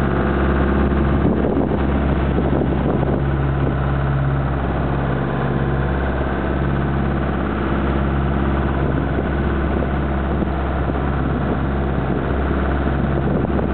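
Marine engine idling, a steady low drone with an unchanging hum.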